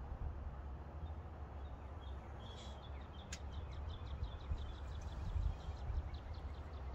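Outdoor background with a steady low rumble. A bird sings a fast, even trill of short high notes from about two and a half seconds in, fading out near the end. A single sharp click sounds about three seconds in.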